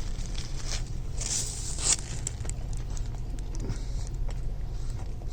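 Biting into and chewing a crispy fried chicken sandwich: crunchy crackling bites, the loudest about a second in, then smaller clicks of chewing, over a steady low hum.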